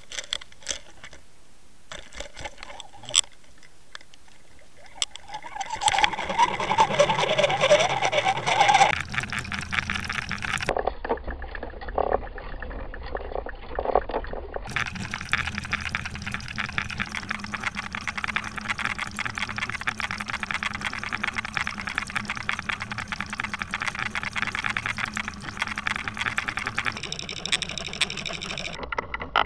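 Underwater sound from a line-mounted fishing camera: a few sharp clicks at first, then from about six seconds water rushing past the housing during the retrieve, with a fast ticking rattle. It changes abruptly several times where clips are cut together.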